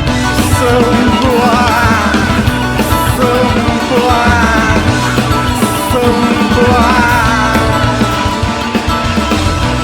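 Loud rock music with a steady beat and a wavering lead melody over it.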